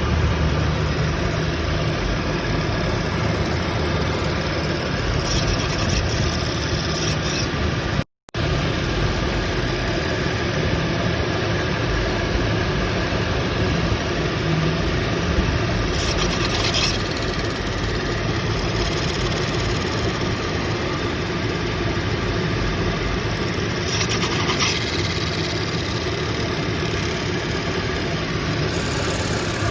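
1999 Volkswagen Passat GLX's 2.8-litre V6 engine running steadily with an unusual noise that its owner has never heard before.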